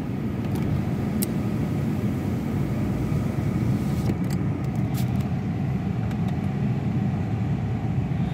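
Steady low hum and rumble inside a parked electric car's cabin, with a few faint light clicks.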